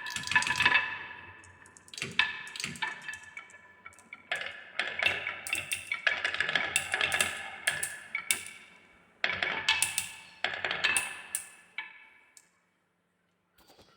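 Marbles rolling and clicking down a wooden marble run, with quick knocks and ringing pings as they hit the pieces; the clatter comes in bursts and stops about twelve seconds in.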